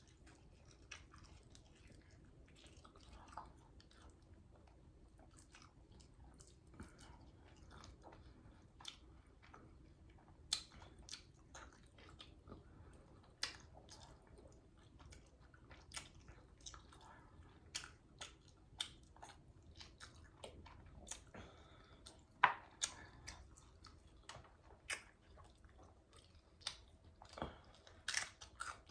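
Close-miked chewing and biting of fried chicken, with short wet clicks and crunches scattered through, over a low steady hum.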